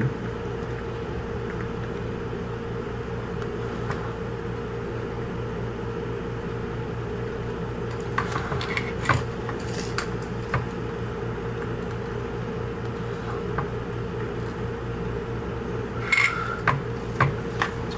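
Steady hum, like a small fan running, with a few light ticks and taps of a soldering iron tip and solder wire against the pins of a circuit board: some around the middle and a cluster near the end.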